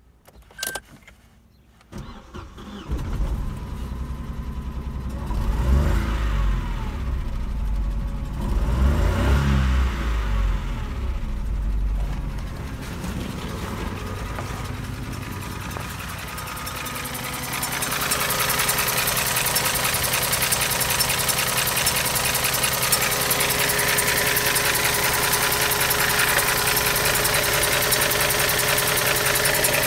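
Opel Corsa C's 1.0-litre three-cylinder Z10XEP petrol engine started with a click and a short crank about 2 to 3 seconds in, then revved up and back down twice. It then settles to a steady idle, heard close and louder under the open bonnet in the last dozen seconds.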